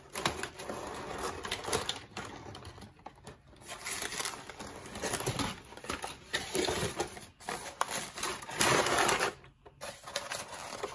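Crumpled kraft packing paper rustling and crinkling in irregular handfuls as it is pulled out of a cardboard box, loudest about nine seconds in.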